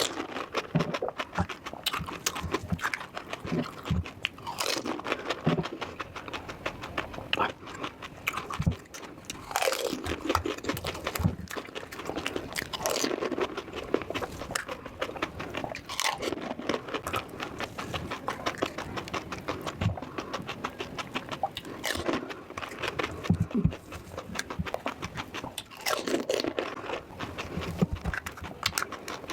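A person biting and chewing crisp, crunchy food, with crunches following one another irregularly throughout.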